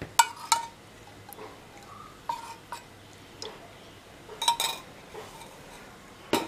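Steel spoon and steel cup clinking against each other and the kadai while cooking oil is spooned into the hot pan: a few sharp metallic clinks with a short ring, in small clusters.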